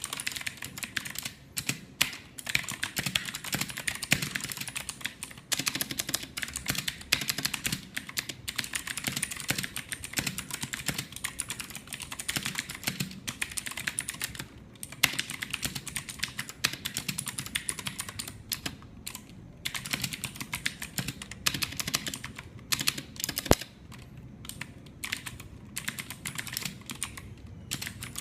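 Fast continuous typing on a mechanical keyboard with Gateron Blue clicky switches, a dense run of sharp clicks and key strikes with brief pauses now and then.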